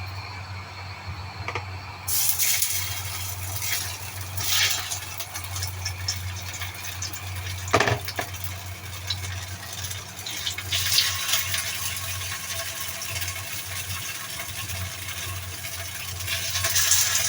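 Water running from a kitchen tap, starting about two seconds in, with a single sharp knock near the middle and a low steady hum underneath.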